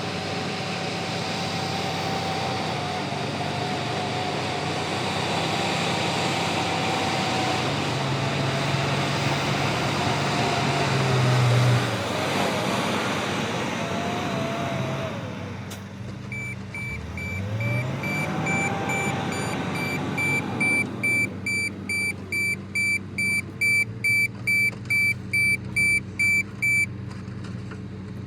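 Heavy diesel machinery running under load, with a hydraulic whine that shifts in pitch as the excavator works, most likely the MST M220LC's engine and hydraulics. From a little past halfway, a reversing alarm beeps steadily about twice a second for some ten seconds, then stops.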